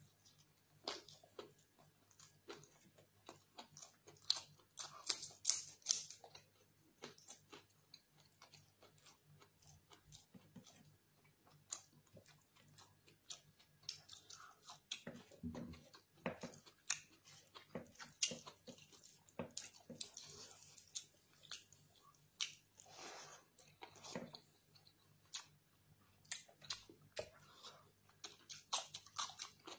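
Close-up eating sounds of a person eating curry, rice and raw salad by hand: wet chewing and lip smacks with irregular short clicks and crunchy bites of raw tomato and cucumber.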